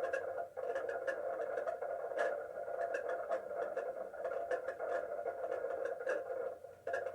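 Steady rushing noise with frequent crackling clicks, carried on a live camera feed's audio as it plays back over a small speaker. It drops out briefly about half a second in and again near the end.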